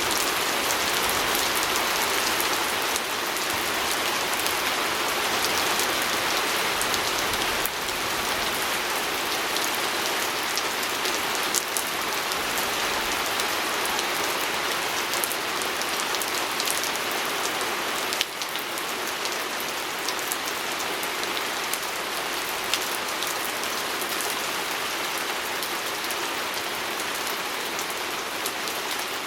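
Steady rain falling on a window, an even hiss with scattered sharper drop taps against the glass.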